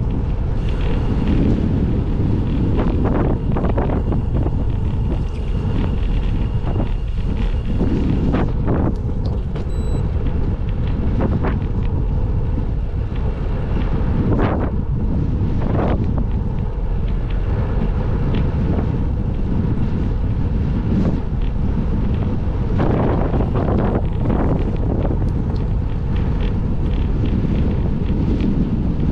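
Wind buffeting the microphone of a camera riding on a moving bicycle: a steady, heavy rumble with irregular gusty flares.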